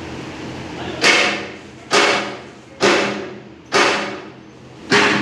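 Hammer blows on steel, five strikes about a second apart, each ringing briefly after the hit.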